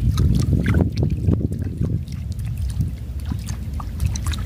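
Hooked fish thrashing and splashing at the water's surface on a bamboo pole line, in short scattered splashes over a steady low rumble.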